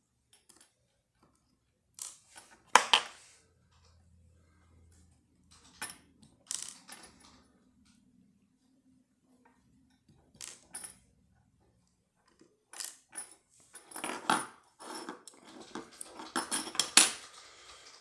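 Small metal parts of a pin-tumbler lock clicking and clinking as they are handled during disassembly: driver pins, springs and tools tapping on a hard surface. Scattered clicks at first, then a quick run of clinks near the end.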